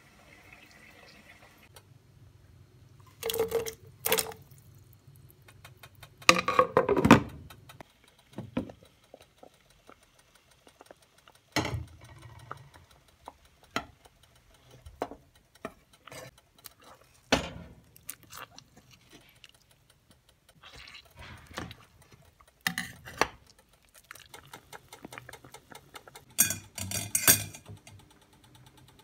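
Kitchen handling sounds: a scattered series of clinks and knocks of metal utensils against pots and dishes, some sharp and briefly ringing, the loudest about six to seven seconds in and near the end.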